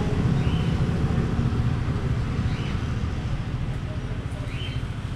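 Low, steady rumble of a motor vehicle engine running close by in street traffic, slowly fading, with a few short high chirps about two seconds apart.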